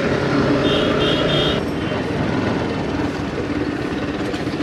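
Single-cylinder Bajaj Pulsar NS160 motorcycle running on the move, with wind rushing over the helmet-mounted microphone. A horn gives short beeps about a second in, and the engine-and-wind sound changes abruptly about two seconds in.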